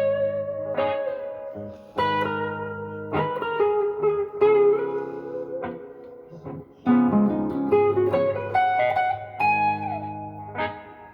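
Slow blues lead on a Gibson SG Special electric guitar (neck pickup) through a Fender Blues Junior IV amp. It plays picked notes with several bent notes sliding up in pitch over sustained lower chords.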